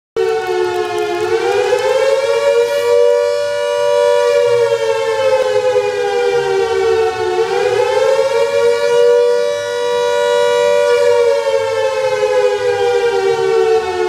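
Civil defence air raid siren wailing with two close, clashing tones that move together. The pitch rises about a second in, holds, falls slowly, rises again about halfway through, and starts to fall again near the end.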